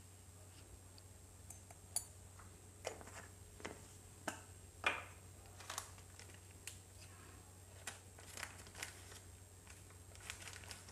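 Faint, scattered clicks and light knocks of kitchen items and spice containers being handled, over a steady low electrical hum.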